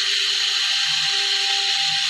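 AKH 1500 handheld fiber laser welder running during a weld test: a steady, loud hiss with a thin steady hum over it and a lower tone that cuts in and out.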